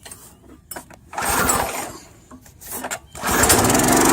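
Small gas engine of a Generac 3100 PSI pressure washer being pull-started with the recoil cord; it catches a little after three seconds in and keeps running steadily at full throttle.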